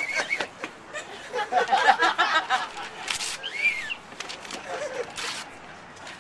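Paper being torn by hand, with two short ripping tears about three and five seconds in, among people's voices and laughter.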